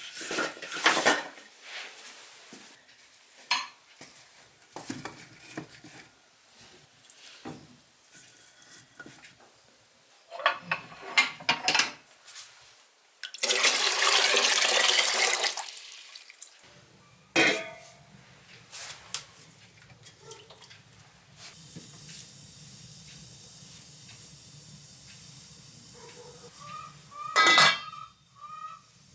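Kitchen work sounds: dishes, pots and utensils clinking and clattering, with about two seconds of running or poured water around the middle. A steady low hum with a hiss sets in a few seconds later and runs under the rest.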